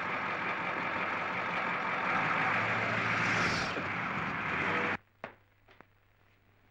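School bus engine running as the bus pulls away, with a short hiss of air about three and a half seconds in. It cuts off suddenly to a quiet room, where wooden chairs knock lightly twice.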